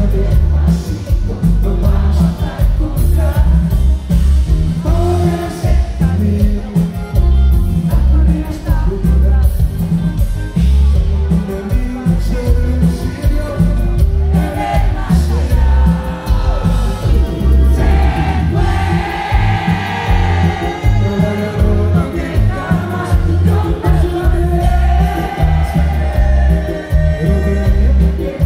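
Live band music from the audience: a steady beat with strong bass from drums and electric bass, keyboards, and singing.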